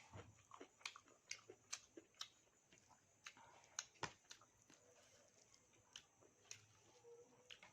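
Faint close-up eating sounds: chewing with a scatter of sharp, irregular mouth clicks.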